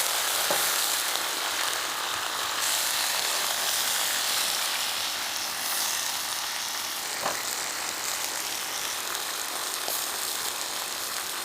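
Steady hissing sizzle of food frying in hot fat in a cauldron over a campfire, with a few small pops.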